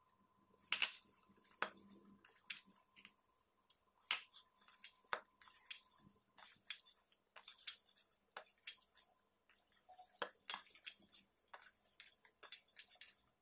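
Hands kneading a stiff semolina dough, moistened with ghee and milk, in a stainless steel bowl: faint, irregular squishes and light knocks, two or three a second.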